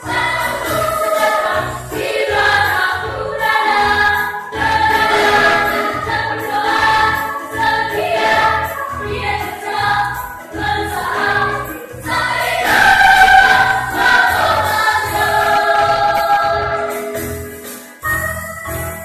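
Children's choir singing an upbeat song together over instrumental accompaniment with a steady beat. The singing stops near the end while the accompaniment carries on.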